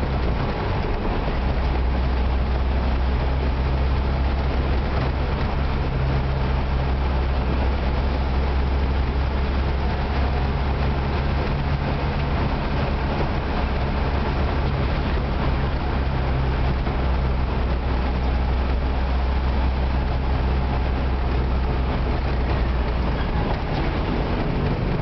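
Engine and road noise inside a moving vehicle's cab: a steady low engine drone with road rumble while driving at an even speed.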